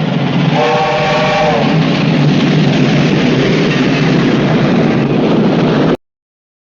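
Old cartoon steam-train sound effect: a train running loudly, with a short whistle blast of several tones at once about a second in. It cuts off suddenly near the end.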